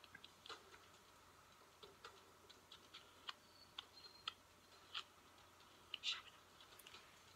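Near silence: room tone with faint, irregular small clicks.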